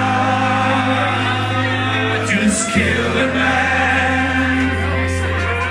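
Live band playing a song with singing, over sustained bass notes that change about midway.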